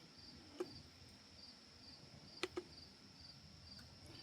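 Faint cricket chirping, an evenly repeated high chirp a few times a second, with three short sharp clicks: one about half a second in and two close together about two and a half seconds in.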